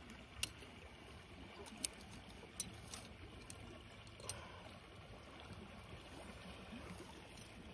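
A handful of small, sharp metal clicks as a steel body-grip beaver trap and its chain are handled while being set, mostly in the first half, over a faint steady hiss.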